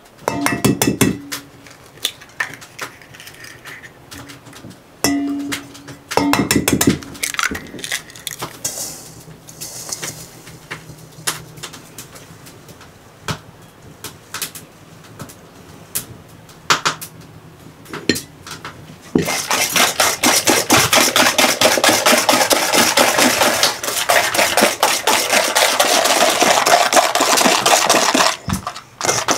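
Kitchen handling sounds: scattered knocks and clinks of dishes and utensils, then a dense, continuous rushing noise lasting about nine seconds that stops near the end.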